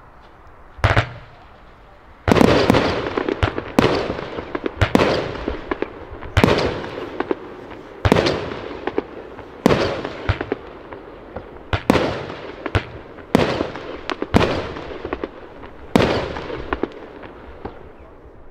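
Argento Opal 30 mm 13-shot firework cake firing: a first pop about a second in, then a string of shots about one every one to one and a half seconds. Each shot is followed by a fading crackle of bursting stars, and the sound dies away near the end.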